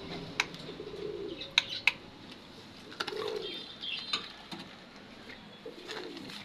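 Pigeons cooing, three low phrases, over faint high chirping of small birds, with a few sharp clicks.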